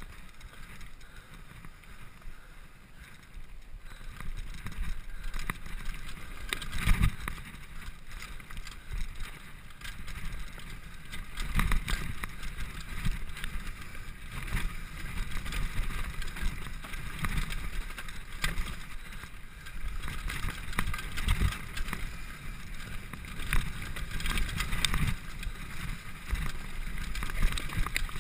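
Mountain bike riding fast down a dirt and gravel trail: tyre noise over the ground with frequent irregular knocks and rattles as the bike hits bumps and stones.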